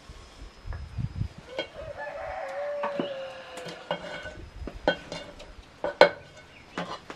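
A rooster crowing once, a long call about two seconds long that sags slightly in pitch at its end. Scattered sharp clicks and knocks come before and after it.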